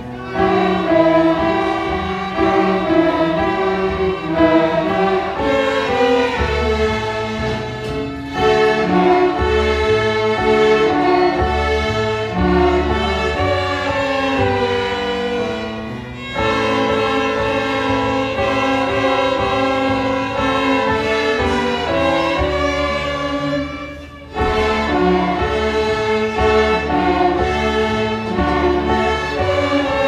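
Student string orchestra of violins and cellos playing a tune together, in phrases with a short break about every eight seconds.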